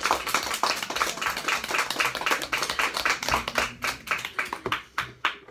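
A small group of people clapping and applauding, the claps thinning out and dying away near the end.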